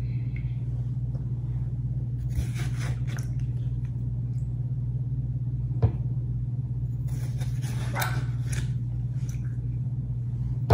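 Electric juicer's motor running with a steady low hum while watermelon pieces go through it, with stretches of hissy churning and a single sharp knock about six seconds in.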